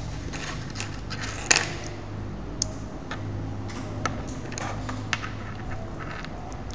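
Small clicks and taps of perforated construction-kit strips and small fittings being handled and fitted together by hand, with one sharper click about one and a half seconds in. A steady low hum runs underneath.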